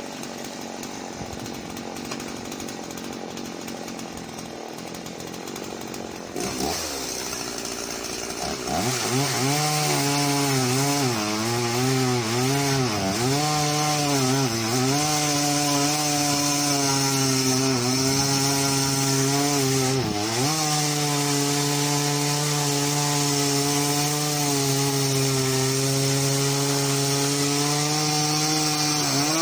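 Husqvarna Rancher 50 two-stroke chainsaw idling, then opening up to full throttle about eight seconds in and crosscutting a log. Under load the engine pitch dips and recovers repeatedly, then settles into a steady high rev without bogging down, and drops off right at the end.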